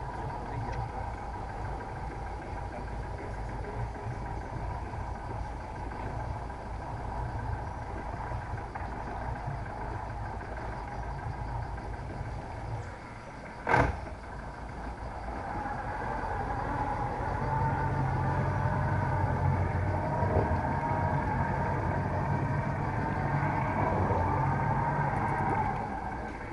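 A boat motor running at low speed under a steady insect drone. There is a single sharp knock about fourteen seconds in, and the motor grows louder from about sixteen seconds.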